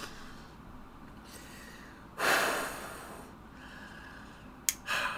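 A man's forceful breath out through the nose, about a second long, followed near the end by a sharp click and a shorter breath.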